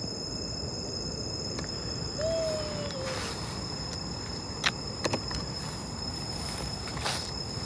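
Night insects, crickets among them, keeping up a steady high-pitched drone. A faint short call falls slightly in pitch about two seconds in, and a few sharp clicks come about five seconds in.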